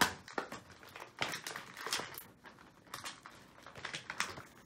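Plastic toy packaging and twist ties being worked loose by hand: irregular crinkling rustles and sharp plastic clicks, the loudest at the very start.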